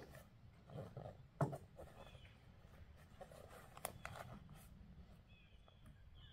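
Faint knocks and rustling of camping gear being handled in a pickup truck bed. There is a sharp knock about a second and a half in and another near four seconds.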